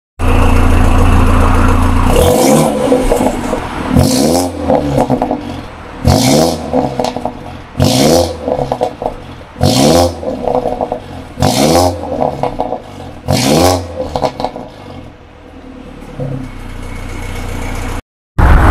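BMW 320i F30 LCI's two-litre turbo four-cylinder with an aftermarket exhaust, idling, then blipped seven times about two seconds apart, each rev rising sharply and falling back. It settles back to a steady idle near the end.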